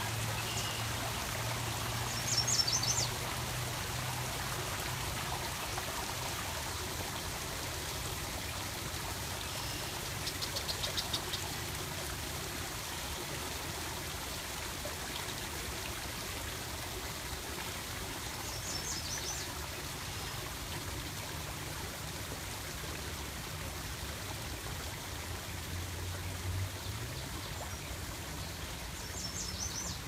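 Marsh water flowing and trickling steadily over a low hum. A few brief high trills break in about four times.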